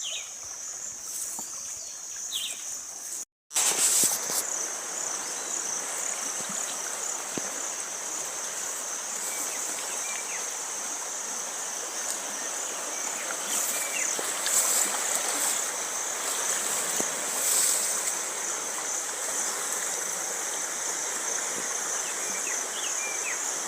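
Rain-swollen river rushing steadily, with insects trilling at a high pitch over it. The sound cuts out for a moment about three seconds in, and the rush of water is louder after that.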